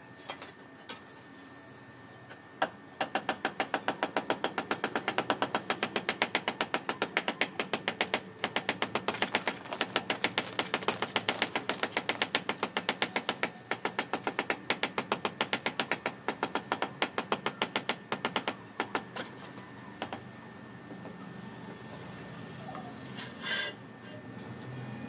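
Rapid, steady tapping on a ceramic floor tile as it is beaten down into its mortar bed, several taps a second. It starts about three seconds in and thins out after about twenty seconds.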